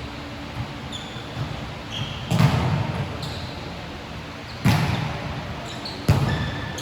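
A basketball hitting a hard court or backboard three times, each a loud thud with a ringing echo, spaced a second or two apart. Brief high squeaks, likely sneakers on the floor, fall between the thuds.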